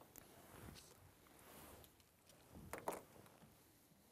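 Near silence: faint outdoor quiet, with a couple of faint short ticks about three seconds in.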